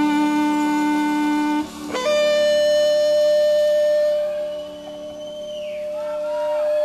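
Electric lead guitar holding long sustained notes: one note rings until about a second and a half in, then a higher note is picked and held steady, fading slightly and swelling back into singing sustain with wavering overtones.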